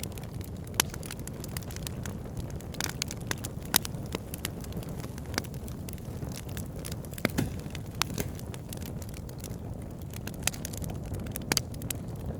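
Campfire burning: irregular sharp crackles and pops over a steady low rumble of the flames.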